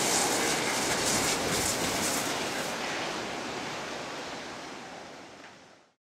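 Steady rushing wind and sea noise on an open cruise-ship deck, fading out to silence near the end.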